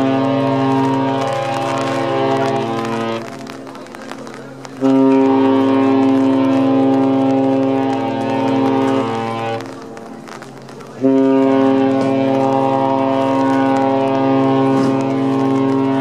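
Cruise ship horns sounding long, deep blasts in several tones at once. The first blast ends about three seconds in, a second lasts about five seconds, and a third starts about eleven seconds in and is still sounding at the end.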